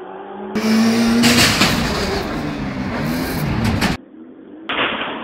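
Buggy engine revving for about three seconds, its pitch rising and falling, cutting in and out abruptly. Hip hop music plays either side of it.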